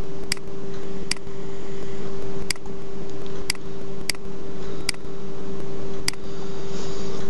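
Computer mouse clicking about seven times, short sharp clicks spaced irregularly, over a steady electrical hum and hiss.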